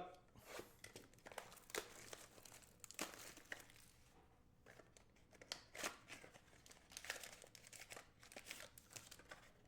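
Faint crinkling and tearing of a hobby box's plastic wrap and cardboard being opened by hand, with scattered small clicks and rustles.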